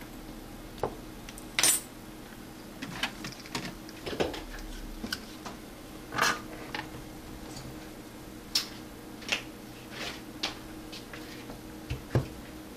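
Scattered light clicks and metallic clinks of small repair tools being handled and set down on a workbench, over a faint steady hum.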